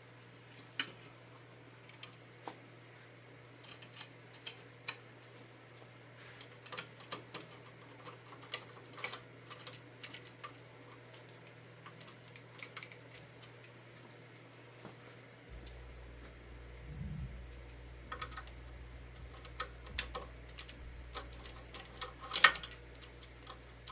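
Irregular small metal clicks and taps of hand tools and screws while a long screw is driven in and tightened on the ceiling fan's mounting hardware, with the loudest clack near the end. A low steady hum comes in about two-thirds of the way through.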